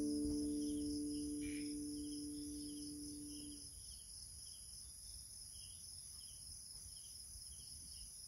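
The last strummed chord of an acoustic guitar rings on and fades away over the first three or four seconds. Behind it, crickets chirp steadily in a fast, high, pulsing trill.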